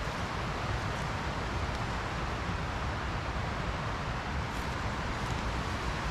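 Steady rushing of a mountain creek over rocks, a continuous even hiss with no breaks.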